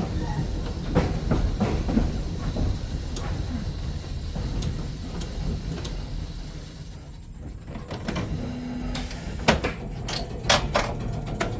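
Wason-built electric trolley car running on its rails, wheels clicking over rail joints, the running noise dying away about two-thirds of the way in as it slows. A few sharp clunks follow near the end.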